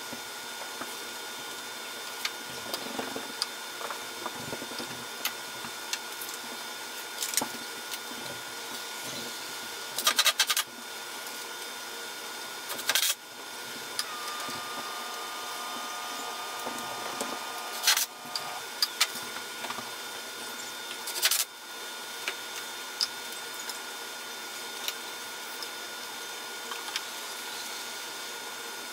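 Handling noise on a pine medicine cabinet: a few sharp knocks and clicks as things are moved against its wooden shelves, with a quick cluster about a third of the way in and single knocks spread through the middle, over a steady hiss.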